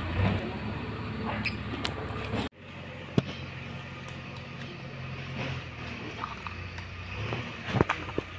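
A steady low engine hum from nearby machinery, with a few light clicks and knocks. The sound breaks off for an instant about two and a half seconds in.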